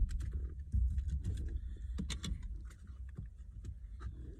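Scattered plastic clicks and light knocks as a small pry tool works the steering column trim cover of a 2007 Toyota 4Runner loose, over a low rumble.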